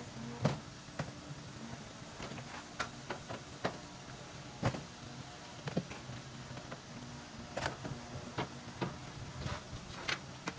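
Scattered knocks and clatters of junk and debris being handled and stacked in a junk-removal trailer, irregular and about a dozen in all, some with a short ringing tail.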